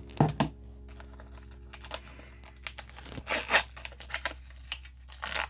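Foil trading-card pack wrapper crinkling and tearing as it is pulled open by hand, in irregular crackles with the loudest rips a little past three seconds in.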